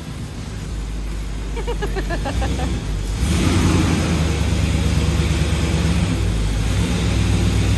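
Car engine running, getting louder about three seconds in.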